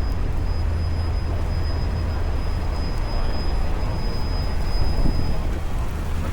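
Steady low rumble, with a faint high whine that stops about five and a half seconds in.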